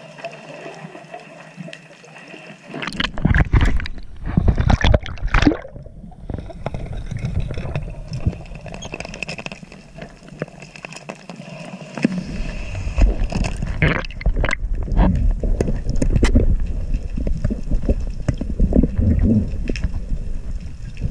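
Water gurgling and rushing past an underwater camera housing as a freediver swims up along a descent line, with loud splashing, bubbling bursts a few seconds in and a steady low rush of moving water from about halfway, near the surface.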